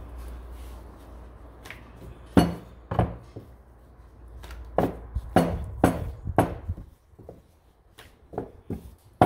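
A serving spoon knocking against a pot and a plate as shredded beef in red chile is spooned onto a flour tortilla: a string of sharp knocks, the loudest about two and a half seconds in, with softer taps near the end. A low steady rumble underneath fades out about seven seconds in.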